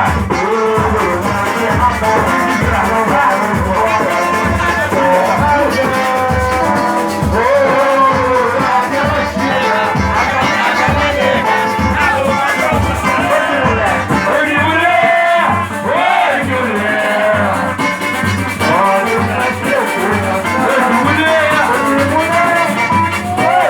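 Music with a steady pulsing beat in the bass and a melodic line that bends in pitch.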